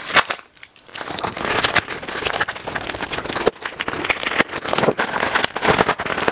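A package being worked open by hand: a few sharp clicks, then from about a second in continuous crinkling and rustling of the packaging.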